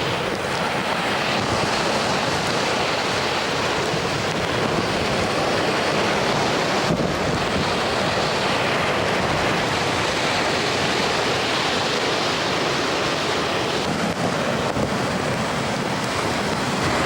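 Typhoon wind blowing hard and steadily, buffeting the microphone.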